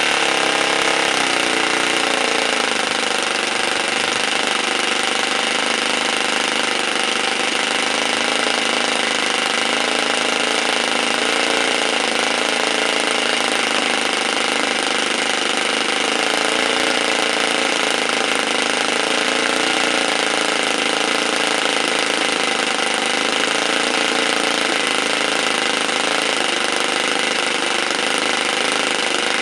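Home-built water-cooled twin-cylinder engine made from two Saito 91 four-stroke model engines, running steadily at a steady mid speed. Its pitch wavers slightly now and then.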